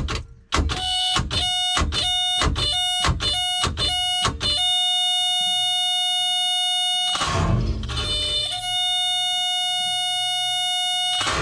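An electric warning buzzer beeping quickly, about three beeps a second, then sounding one steady tone. About seven seconds in, a short burst of rough noise breaks in for a second or so, and then the steady tone carries on.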